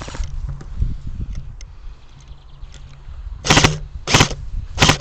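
Three short bursts of airsoft gunfire, about two-thirds of a second apart, in the second half.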